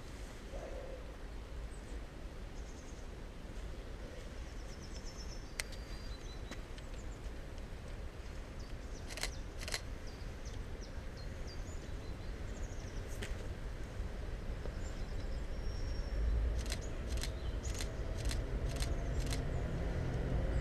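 Quiet open-air ambience with a few bird calls and some sharp clicks; over the last few seconds the low rumble of an approaching class 232 'Ludmilla' diesel locomotive grows steadily louder.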